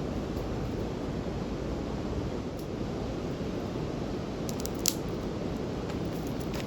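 Wood fire crackling: a few scattered sharp pops, the loudest about five seconds in, over a steady low rumble.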